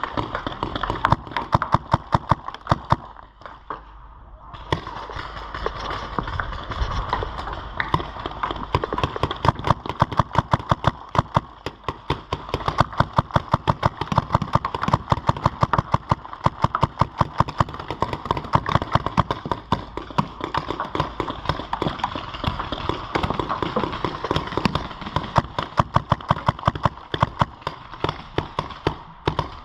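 Paintball markers firing in rapid strings of sharp pops, several shots a second, with a brief lull about three to four seconds in.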